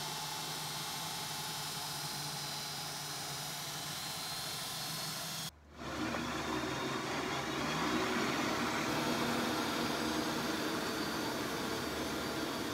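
Electric-converted Craftsman GTV/16 garden tractor driving, its NetGain Warp 9 electric motor and belt drive making a steady hum under an even hiss. The sound drops out briefly about five and a half seconds in, then comes back closer and a little louder.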